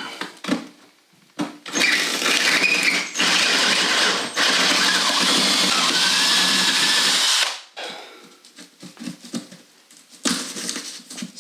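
Power drill boring out a hole for a PEX water line. It runs in a few short bursts, then steadily for about three seconds before stopping about seven and a half seconds in, followed by light clicks and knocks.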